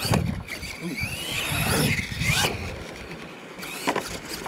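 RC monster truck's electric motor whining, its pitch rising and falling as the throttle is worked, with a few sharp knocks from the truck on the dirt course.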